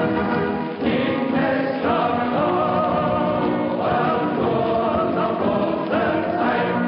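Background music: a choir singing slow, held chords that change about once a second.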